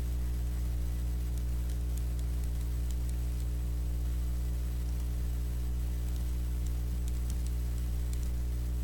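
Steady electrical mains hum in the recording, with faint scattered keyboard clicks as text is typed.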